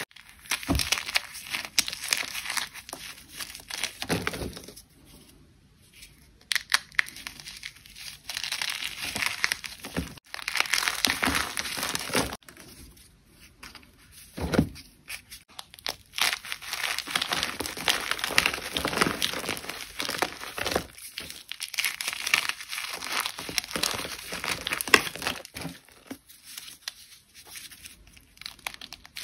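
A crisp, dry material being crushed and crumbled, crackling and crunching in dense bursts with a few short pauses between them.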